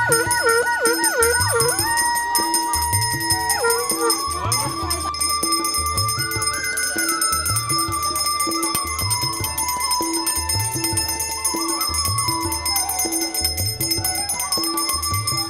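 Traditional South Asian music: a reedy wind melody with quick trills and held notes over a steady low drumbeat about once a second, with jingling percussion.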